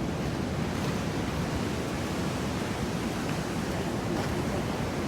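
Ocean surf breaking and washing along the shore: a steady, even rushing.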